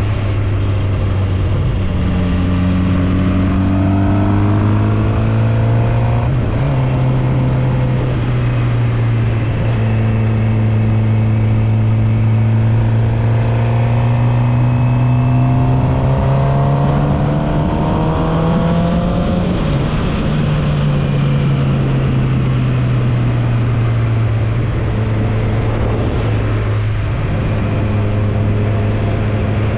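Suzuki GSX-R750's inline-four engine under way, its pitch climbing through the revs, with a break about six seconds in. A longer climb follows, then the revs fall back about two-thirds of the way through and it holds steady to the end, over a constant rush of wind and road noise.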